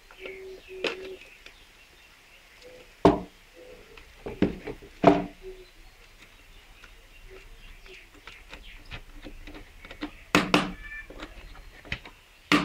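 Scattered sharp clicks and knocks of plastic miniature circuit breakers being handled and fitted together on a bench. The loudest come about three and five seconds in, with a short cluster about ten seconds in.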